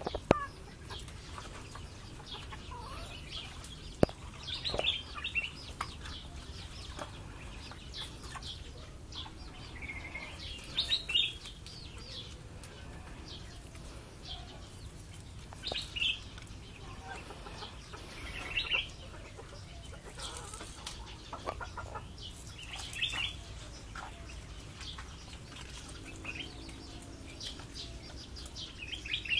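A backyard hen and her chick calling: short high-pitched peeps and clucks that come in little clusters every few seconds, over a low steady rumble.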